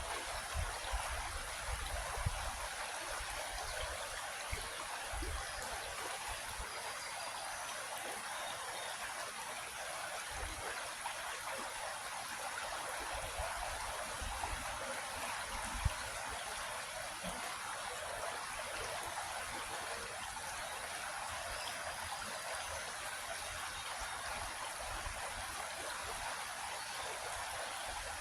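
Creek water flowing steadily, an even rushing and trickling, with a single sharp click about sixteen seconds in.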